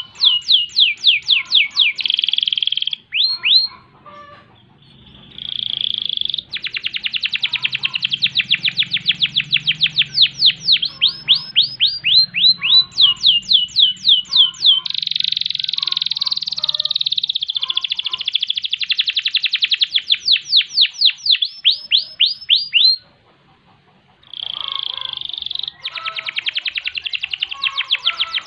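Domestic canary singing: long runs of rapid, sharply falling high notes alternate with dense, steady rolling trills, broken by two short pauses.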